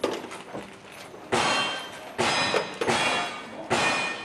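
A string of gunshots, roughly one a second, from a long gun in a cowboy action shooting stage. Each shot is followed by the ringing clang of a hit steel target.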